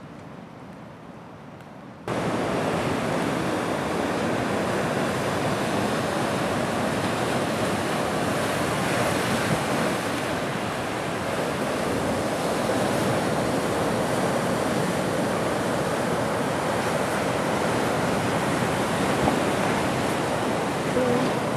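A low hush at first, then about two seconds in, ocean surf breaking over rocks and onto sand cuts in suddenly and runs on loud and steady.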